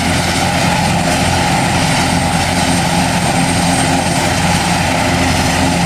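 Airbus H225 Super Puma helicopter running on the ground after start-up: its twin turboshaft engines and main rotor running steadily and loudly, with a thin high whine over a deep hum.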